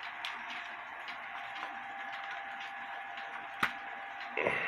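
Handling of an old wooden shield clock: faint scattered clicks and knocks, with one sharp click about three and a half seconds in and a short louder rustle near the end, over a steady faint hum.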